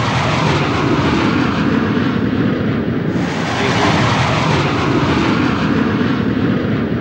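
A jet airliner taking off, its engines at takeoff power making a loud, steady noise that turns brighter about three seconds in.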